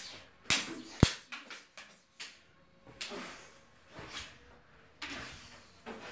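Plastic toy lightsabers clacking and swishing in a play sword fight, a sharp plastic crack about a second in, then more irregular knocks and scuffles every second or so.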